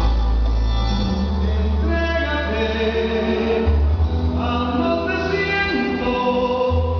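Latin dance music with singing over a strong bass line, played loud through a DJ sound system.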